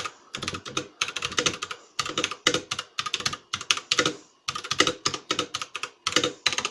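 Typing on an MK Disco tenkeyless mechanical keyboard with tactile KBTalking Brown switches: quick runs of keystroke clicks with short pauses between them.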